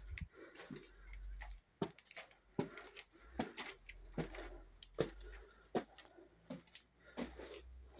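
Footsteps on the gritty stone floor of a cave passage, about one step every three-quarters of a second, over a low rumble.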